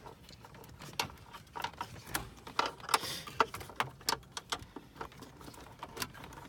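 Irregular light clicks and taps of small parts being handled while working on a car's dashboard trim, with a brief scrape about halfway through.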